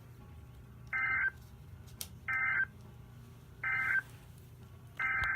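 NOAA Weather Radio EAS data tones: three short, identical bursts of warbling SAME digital code, about a second and a half apart, the end-of-message signal closing the flash flood warning. Near the end a longer burst of the same tones begins, the header of the next alert.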